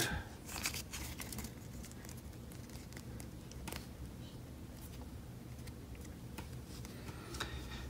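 Pokémon trading cards being slid and shuffled in the hands: faint, scattered soft clicks and rustles over a low steady background hum.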